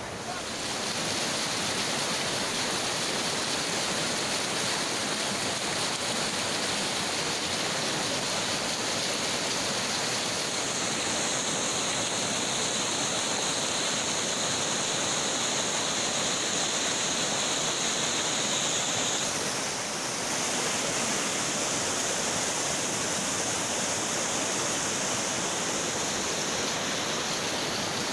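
Floodwater from a stream swollen past its danger level, rushing steadily over a submerged bridge, with a brief dip about two-thirds of the way through.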